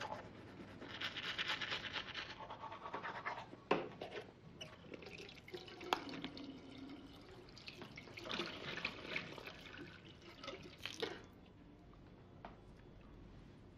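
Rustling and scraping from hands handling things at close range, in two stretches, with a few sharp knocks in between.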